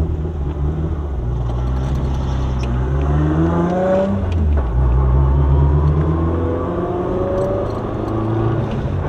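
Turbocharged Honda Civic Si's 2.4-litre four-cylinder engine at full throttle, heard from inside the cabin, in a boost test pull. The revs climb through one gear, drop at a shift about four seconds in, then climb again through the next gear.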